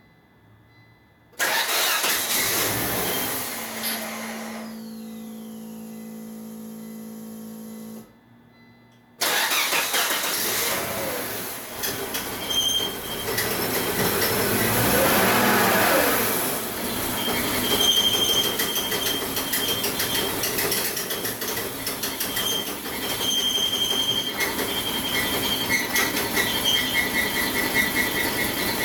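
Volvo 850 T5's turbocharged inline five-cylinder engine is started about a second in, runs for several seconds and cuts out, then starts again about nine seconds in and keeps running, swelling briefly in the middle. This is a test run after its vacuum hoses and boost control solenoid line were reconnected.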